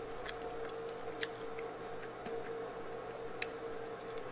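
Close mouth sounds of a person chewing soft food, chana masala on fried bread, with a few scattered wet clicks over a faint steady hum.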